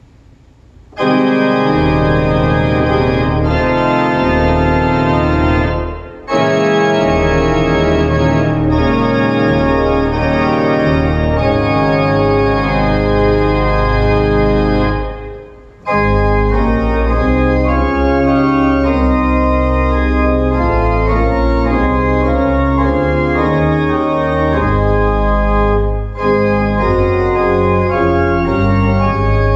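Organ played with manuals and pedals: a hymn arrangement in loud sustained chords over a low pedal bass line. It enters about a second in, with short breaks between phrases at about six and fifteen seconds.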